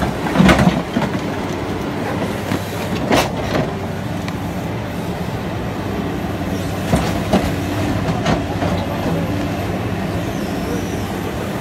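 MST M300LC crawler excavator's diesel engine running steadily, with the hydraulics working as it swings and travels over loose stones. Sharp knocks of the steel bucket and tracks on rock come about half a second in, again around three seconds in and lighter ones later.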